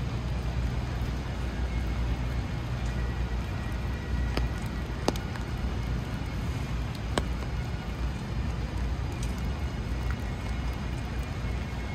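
Steady city rain with a low traffic rumble underneath and a few sharp clicks.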